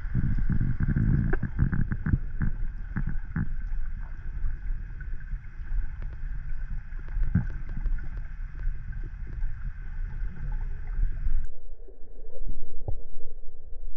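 Action-camera sound underwater: a muffled low rumble with scattered clicks and knocks over a faint steady whine. About eleven seconds in the sound changes abruptly, the higher part dropping out.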